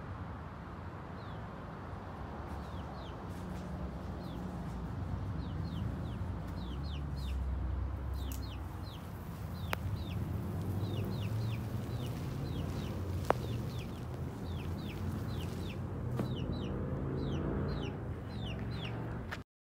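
Chickens clucking and chirping: many short high chirps that fall in pitch, often several a second, over a steady low rumble. The sound cuts off suddenly near the end.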